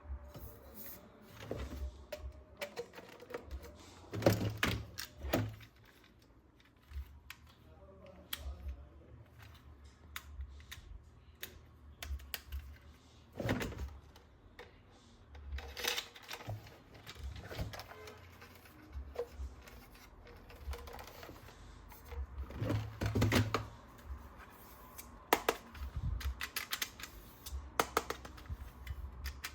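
Plastic toy gun parts and packaging being handled: irregular light clicks and taps, with a few louder knocks.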